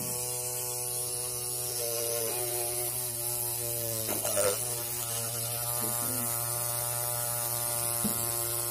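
Small 12-volt brushed DC motor running steadily, spinning a homemade mini water pump through a rubber-tube coupling: a steady electric hum with a whine.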